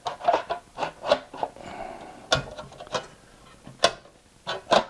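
Irregular light knocks and clicks of a Garmin GNS480 radio's sheet-metal chassis and shield covers being handled and turned over, about a dozen sharp taps.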